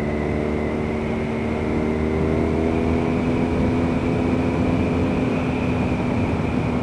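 BMW R nineT Scrambler's 1170cc boxer twin pulling along at road speed, its note climbing a little about two seconds in and then holding steady, heard through a helmet-mounted camera with low wind rumble.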